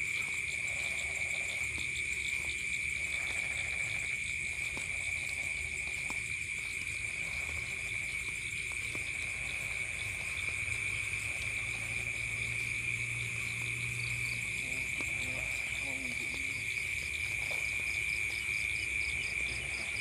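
Chorus of night insects: a steady high-pitched shrill with a faster pulsing trill above it, the trill growing more distinct near the end.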